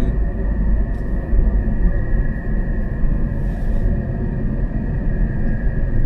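Steady low rumble of a car driving at road speed, engine and tyre noise heard from inside the cabin, with a faint steady high hum above it.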